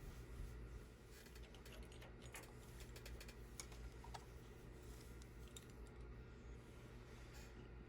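Faint, scattered small clicks and taps over a steady low hum.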